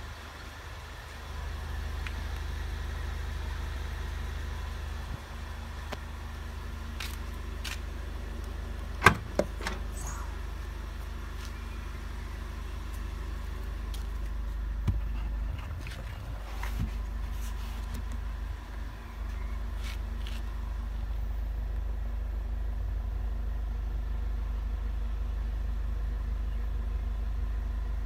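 Handling sounds at the boot of a 2009 VW Passat CC: a sharp click about nine seconds in as the boot lid is opened, then scattered softer clicks and knocks as the boot floor panel is lifted to show the spare wheel, over a steady low rumble.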